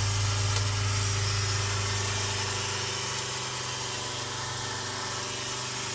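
Reverse osmosis booster pump running with a steady electric hum, the system pressurised to about 60 psi. The hum grows a little fainter about halfway through.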